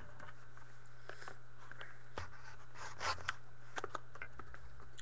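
Scattered light clicks and scrapes of trading-card boxes and packaging being handled, over a steady electrical hum.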